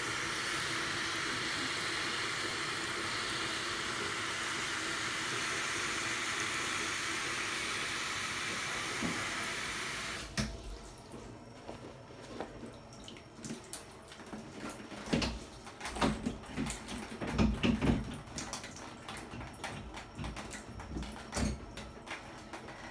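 Water running steadily from a shower hose into an inflatable baby bath, cut off abruptly about ten seconds in. After that come scattered light knocks and bumps, loudest a few seconds later.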